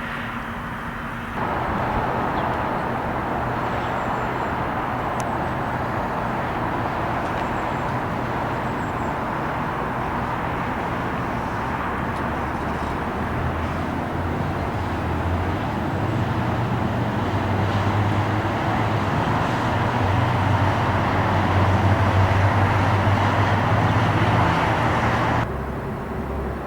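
Outdoor recording of a steady engine roar over a low rumble that grows louder toward the end, then cuts off abruptly.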